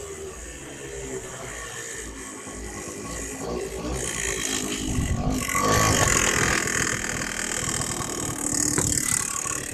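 Stels Tactic 50 scooter engine running with a fast, even mechanical knocking, getting louder about halfway through: the piston striking the cylinder head, as the owner takes it.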